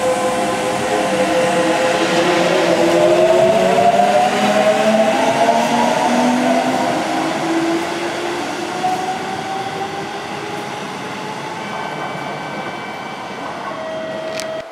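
Kintetsu electric train pulling away: its traction motors whine in several tones that rise steadily in pitch as it accelerates, over the running noise of the wheels, growing fainter as the train recedes.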